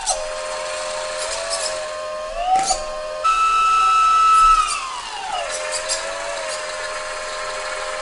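Hydraulic pump motor of an RC Volvo L250G wheel loader whining steadily. About three seconds in its pitch jumps sharply higher as the hydraulics are worked, then glides back down to the lower steady whine.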